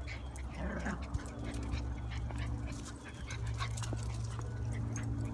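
Italian greyhounds and a puppy playing, with a short rising-and-falling dog whine under a second in, among scattered light ticks and rustles of their running.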